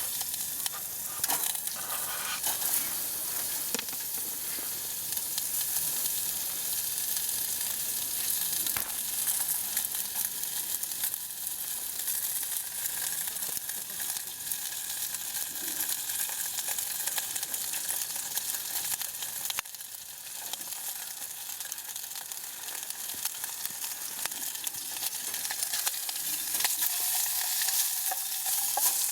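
Food sizzling in a hot frying pan: a steady crackling hiss with scattered small pops.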